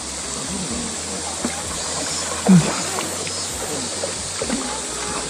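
A shallow river runs steadily, and water splashes as a Golden Retriever wades through it. A short, loud voice-like call sounds about two and a half seconds in.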